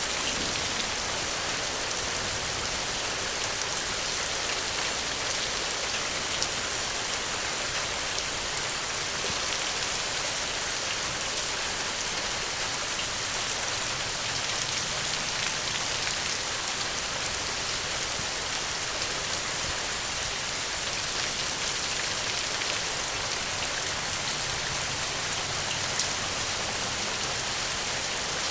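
Steady rain falling, an even hiss with now and then a sharper drop tick.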